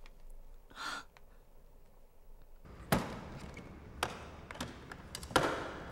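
A soft breath near the start, then hand tools knocking and clacking in a plastic toolbox: four sharp knocks over about two and a half seconds, the first and last loudest, with a little echo.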